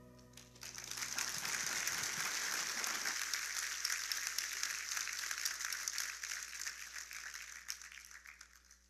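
Audience applauding. The clapping starts about half a second in as the music dies away, holds steady, and fades out near the end.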